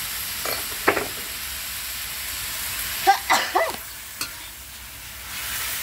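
Water spinach stir-frying in a wok with oyster sauce just added: a steady sizzle, with a metal spatula scraping and clinking against the wok about a second in and again, loudest, around three seconds in.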